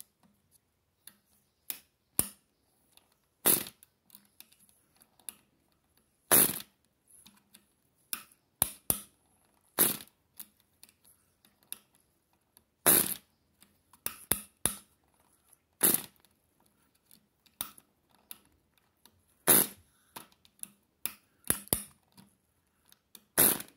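Cox .049 Sure Start two-stroke glow engine being flipped over by hand at its propeller, giving irregular sharp snaps and clicks, the loudest about every three seconds. The engine is being primed and restarted and does not catch.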